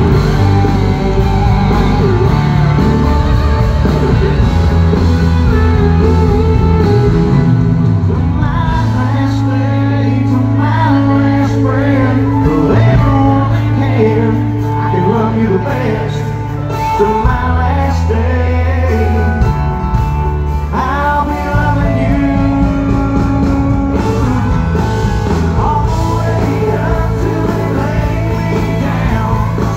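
Live country band playing loud through a concert PA: electric guitars under a male lead vocal singing the song.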